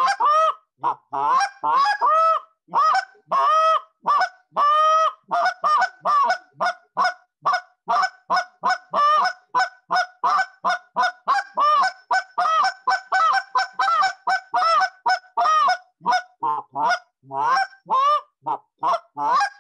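Short reed goose call blown in a long, rapid run of clucks and moans: dozens of short honking notes, each breaking from a low tone up to a high one, slower and drawn out at first, then a fast, even series of about three or four a second. The clucks and moans are strung together into a continuous calling sequence.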